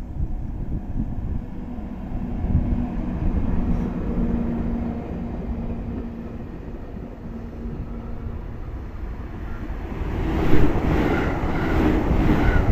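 Freight train on electric-locomotive haulage running through the station: a low rumble with a steady hum, then about ten seconds in it grows louder and closer, with a regular clatter of wheels over rail joints.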